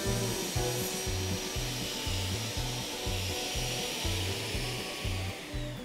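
Felder sliding table saw running idle after a cut, its steady hiss slowly fading, with a whine that falls in pitch near the end as the blade spins down. Background music with a steady beat plays underneath.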